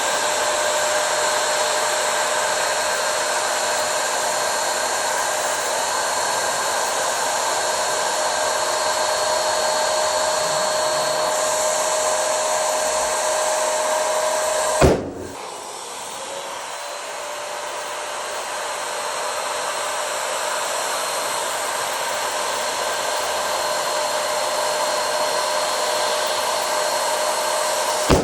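A small electric air blower runs steadily with a constant whir, and two balloons burst with sharp pops, one about halfway through and one at the very end; after the first pop the blower sound drops and slowly builds back up.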